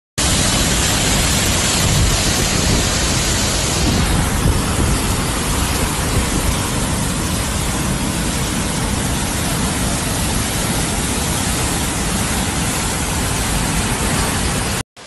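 Flash-flood torrent of muddy water rushing down a steep village street: a loud, steady rushing noise that cuts off suddenly near the end.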